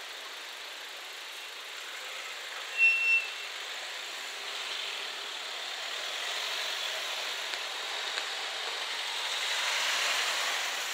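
Cars driving over a level crossing, with tyre and engine noise growing louder as traffic passes. One short, high beep sounds about three seconds in.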